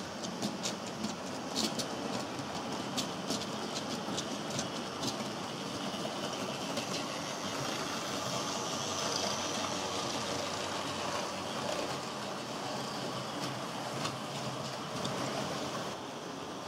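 HO scale model trains running along the layout's track: a steady rolling rattle of the small wheels, with a run of sharp, irregular clicks over the track joints in the first five seconds or so.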